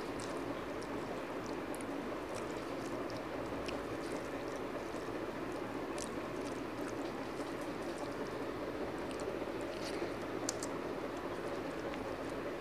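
Hand-eating sounds: faint scattered clicks and smacks as fingers mix rice and fried potato on a steel plate, and then chewing. These sit over a steady rushing background noise.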